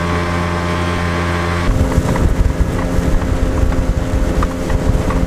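Boat's outboard motor running steadily under way, a constant engine drone. Just under two seconds in the sound changes abruptly to a lower, uneven rumble with wind buffeting the microphone, the motor's steady tone still underneath.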